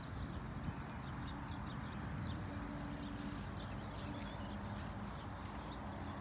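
Footsteps and the rustle of someone walking on grass, with faint bird chirps in the background.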